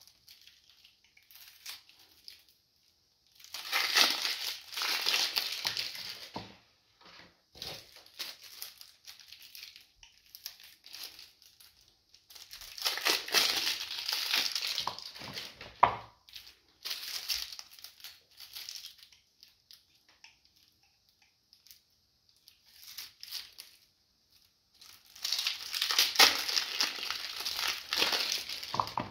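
Clear plastic wrap crinkling and crackling as it is peeled off bars of soap. It comes in three longer, louder bursts with short quieter rustles between.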